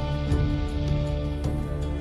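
Opening theme music of held, sustained notes over a low drone, with a couple of soft struck accents.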